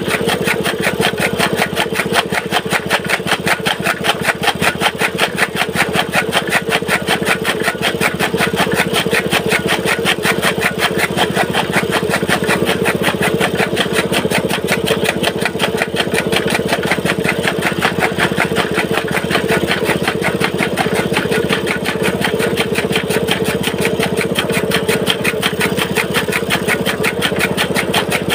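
Small petrol engine running steadily with a fast even beat, belt-driving a flywheel chaff cutter (toka) that is chopping green fodder.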